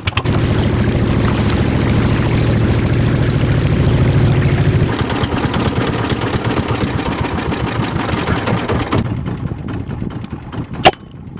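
Small boat's engine running steadily, dropping to a lower level about five seconds in and cutting off about nine seconds in, followed by a single sharp crack near the end.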